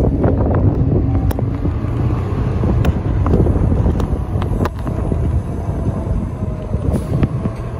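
Interior of a 2018 New Flyer XDE60 diesel-electric hybrid articulated bus under way: a steady low rumble from the drivetrain and road, with scattered sharp rattles and clicks from the cabin. A faint steady whine joins about two-thirds of the way through.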